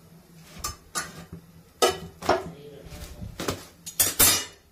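Metal roti tongs clinking and knocking against the gas stove's burner grate and utensils as a roti is puffed on the open flame and lifted off: about eight sharp metallic clicks, the loudest near the end, over a low steady hum.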